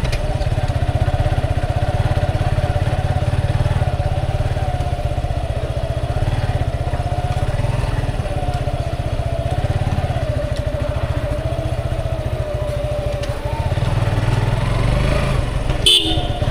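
Motorcycle engine running steadily at low road speed, heard from the rider's seat, with a wavering hum over its low pulsing note. A brief sharp sound comes near the end.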